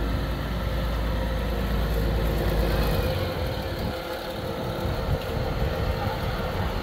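A motor vehicle's engine running at low speed close by, amid street noise; its deep rumble fades about three seconds in.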